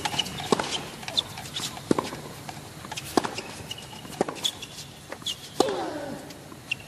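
Tennis rally: the ball is struck back and forth with rackets, five sharp hits at a steady tempo of about one every second and a quarter.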